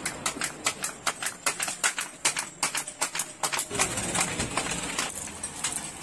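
A knife cutting cucumber makes quick, even clicks, about five a second, which stop about two-thirds of the way through.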